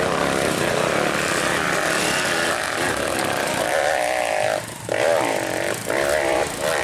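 Dirt bike engine revving hard under load up a steep dirt hill climb, its pitch wavering up and down. The engine note drops out briefly twice in the second half as the throttle is chopped.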